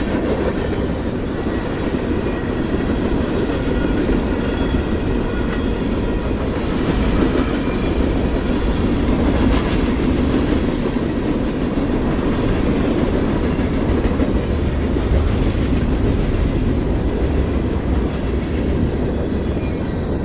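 Freight cars of a CSX freight train rolling past: a steady rumble of steel wheels on rail, with some clickety-clack.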